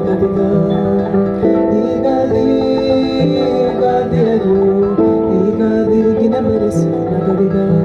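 Acoustic guitar music with a singing voice.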